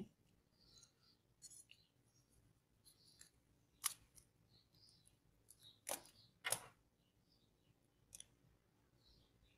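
Near silence broken by a few faint, short clicks and taps as a keypad mobile phone is handled and its battery is pressed into place.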